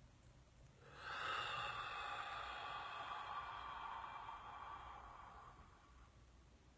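A long, slow breath out through the nose that starts about a second in and fades away over about five seconds.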